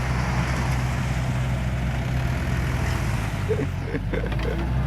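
Motor vehicle engine running steadily with a low, even hum.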